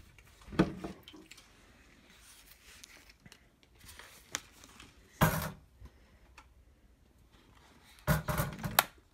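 Handling noise from the Hart 20V pressurized cleaner and its hose being moved around a stainless steel kitchen sink: a sharp knock about half a second in, another a little after five seconds, and a quick cluster of knocks and rattles near the end.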